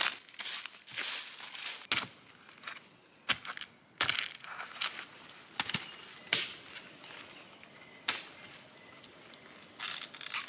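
Dry fallen bamboo leaves and twigs crunching and crackling in an irregular string of sharp cracks as someone moves and handles things on the leaf litter. A steady high insect drone runs underneath and grows stronger about four seconds in.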